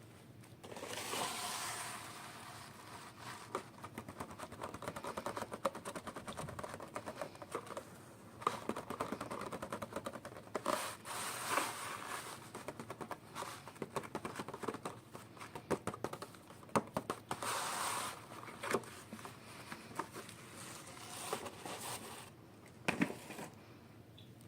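Plastic packaging crinkling and tearing, with scrapes and small clicks, as a miniature toy package is opened by hand, in several louder spells of rustling.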